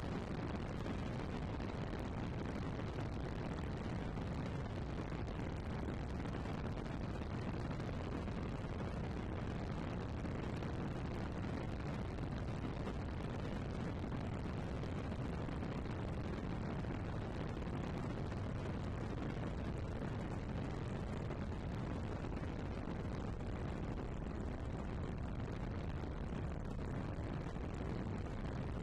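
Steady low rumble of an aircraft in flight.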